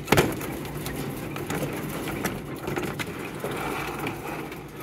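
Quail pecking and scuffling in a plastic tub around a plastic feeder of black soldier fly larvae: a sharp knock just after the start, then a run of small taps and scratches over a steady low hum.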